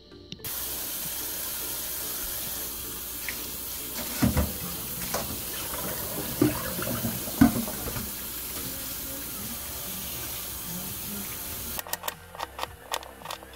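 Kitchen tap running into a stainless-steel sink as bell peppers on a plate are washed under it, with a few knocks as the plate and peppers are handled. Near the end the water stops suddenly and a knife starts slicing an onion on a wooden cutting board in a quick run of sharp taps.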